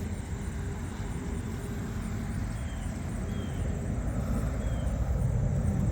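Low rumble of a vehicle that slowly grows louder, with a few faint short high chirps over it.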